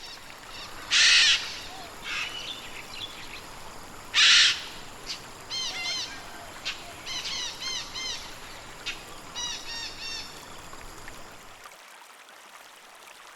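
Tanimbar corella calls: two loud, harsh screeches about three seconds apart, followed by softer clusters of short, rapid chirping notes that stop shortly before the end.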